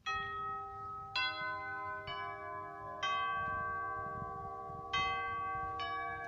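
Nutone Jefferson doorbell clock's tubular chimes being struck in a slow melody: four notes about a second apart, a pause, then two more. Each note rings on under the next.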